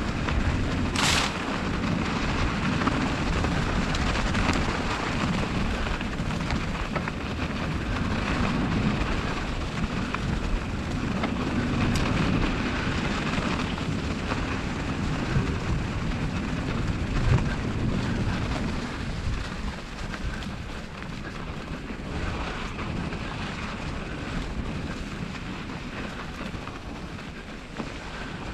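Wind buffeting the microphone over the rumble of bicycle tyres rolling through snow, a steady noise that eases a little in the last third. A short hiss about a second in.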